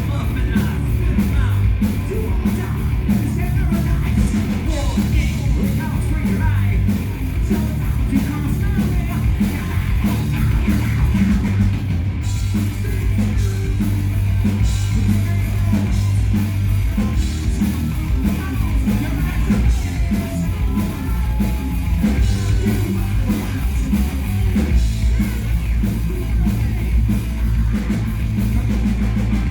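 Live hard rock band playing loudly: distorted electric guitars, bass and drums, with a male lead vocalist singing and yelling.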